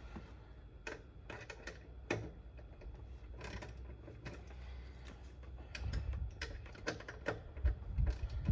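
Irregular light clicks and taps of a hand wrench on a headlight motor mounting nut being tightened, with a few dull bumps near the end.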